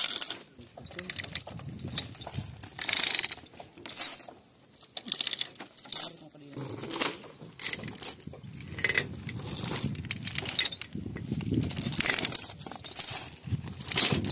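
Heavy steel chain clinking and rattling as it is pulled and laid across a pile of cut sugar cane stalks, in irregular sharp metallic clinks, with the dry stalks rustling and knocking underneath.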